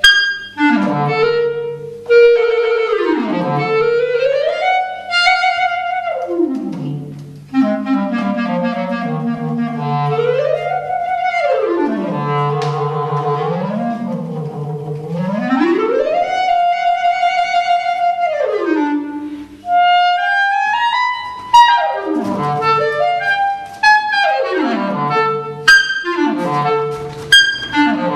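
Solo clarinet improvising freely: long slides up and down in pitch, a high held note in the middle, and quick falling runs near the end.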